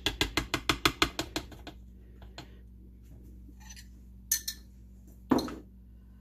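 A spoon knocking rapidly against a jar of natural peanut butter, about seven clicks a second for the first couple of seconds, then a few scattered clinks and knocks, the loudest about five seconds in.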